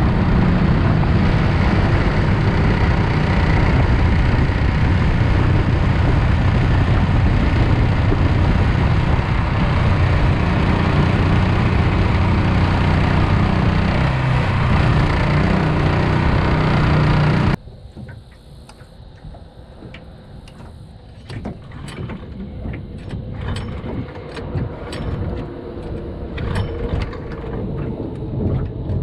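Predator 420cc single-cylinder engine of a longtail mud motor running steadily at speed. It cuts off suddenly about two-thirds of the way through, leaving quieter scattered clicks and knocks.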